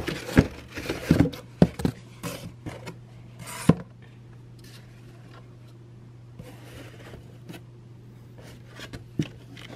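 Large plastic supplement bottles and cardboard box flaps being handled: a run of sharp knocks, rubs and scrapes in the first few seconds, then quieter with a few scattered clicks near the end. A steady low hum runs underneath.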